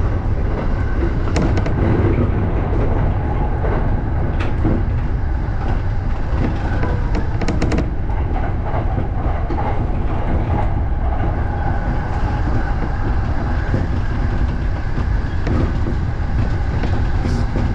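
A JR Joban Line electric train running, heard from inside the train: a steady rumble with wheels clicking over rail joints and points. A quick run of clicks comes about seven to eight seconds in.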